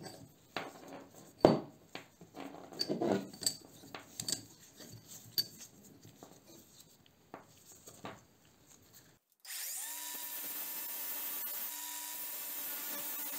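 Metal clinks and knocks as a bicycle chain is handled and set into a steel bench vise, the loudest knock about a second and a half in. After about nine seconds an angle grinder starts, spins up and runs steadily with its disc not yet cutting.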